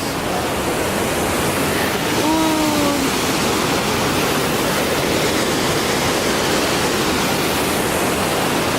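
Waterfall rushing, a loud steady roar of falling water. About two and a half seconds in, a short falling call from a voice sounds faintly over it.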